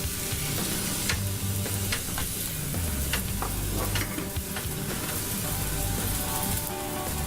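Cooked macaroni sizzling in a hot pot on the stove as it starts to dry out, a steady hiss with occasional sharp clicks.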